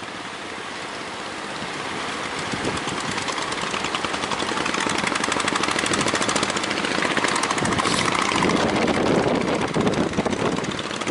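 Speedboat's outboard engine running with a fast, even firing pulse, getting louder over the first few seconds and then holding steady.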